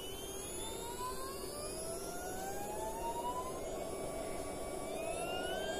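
Stepper motor on an Allegro driver whining, its several tones gliding upward in pitch as the step speed is turned up. The pitch levels off briefly about four seconds in, then climbs again.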